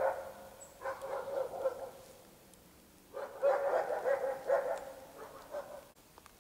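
A dog barking in three runs of quick barks, the last and longest starting about three seconds in.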